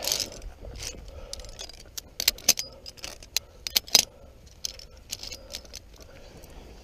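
Via ferrata carabiners clinking and scraping along the steel safety cable, a run of sharp metallic clicks that is loudest about two to four seconds in.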